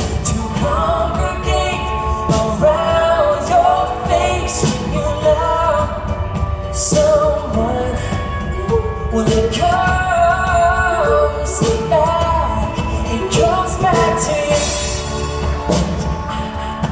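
Live pop band in concert: voices singing a melody over guitars, bass and drums, with cymbal and drum strikes keeping a steady beat, heard with the echo of a large hall.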